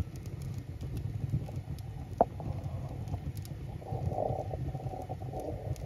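Wood fire burning in a brick baking oven, split logs catching from an oil-soaked egg-carton fire starter: a steady low rumble of the flames with faint crackles and one sharp pop about two seconds in.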